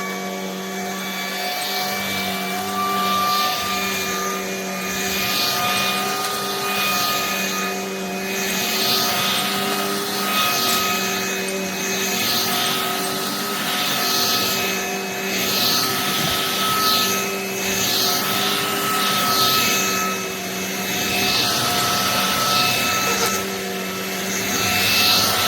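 Vacuum cleaner running with a steady motor whine. A hiss swells and fades about every one to two seconds.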